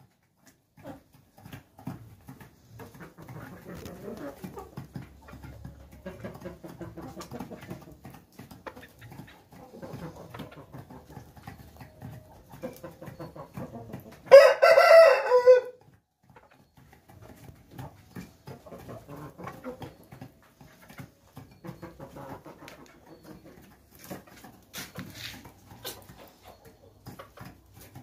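A group of Aseel chickens clucking softly and pecking at a feed bowl. About halfway through, one bird gives a single loud crow lasting over a second.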